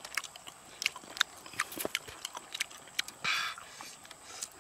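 Close-up eating sounds of a person chewing cooked crab: irregular sharp clicks and crackles of shell and mouth, several a second, with a short breathy hiss about three seconds in.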